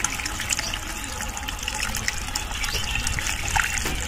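Diesel fuel being poured steadily into a generator's fuel tank, a continuous splashing gush of liquid.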